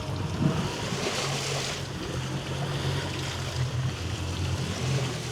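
A small fishing boat's engine hums low and steady at sea, with wind on the microphone and water washing against the hull, and a louder hissing surge of water about a second in.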